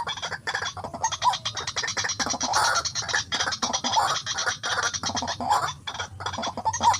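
White-breasted waterhen calling: a rapid run of harsh, rasping croaks with short upward-pitched notes woven through.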